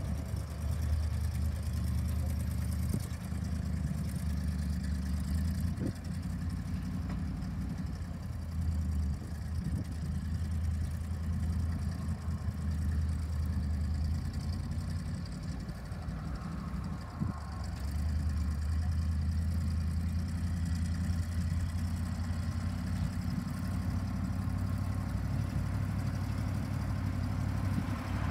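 A 1979 Chevy C70 grain truck's engine idling steadily, a low, even rumble.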